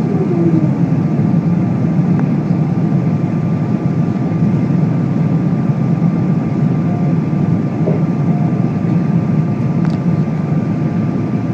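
Boeing 777-300ER in its climb after takeoff, heard as a steady, loud cabin drone of its GE90 engines and rushing air, with a thin steady whine above it. A falling tone fades out about a second in.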